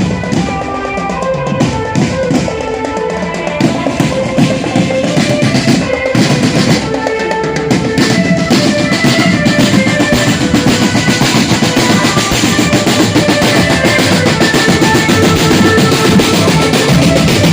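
A marching drum band playing loud, fast drumming with bass drum and snare under a melody of held high notes, getting louder and denser about halfway through.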